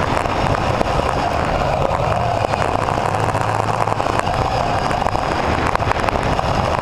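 Radio-controlled mini racing car's electric motor and gears whining, the pitch wavering up and down with speed, over the rush of tyres on carpet and a rattle of small clicks from the chassis, heard from a camera mounted on the car.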